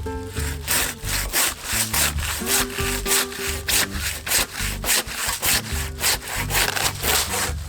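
Hand saw cutting through a wooden log in quick, even strokes, about four a second.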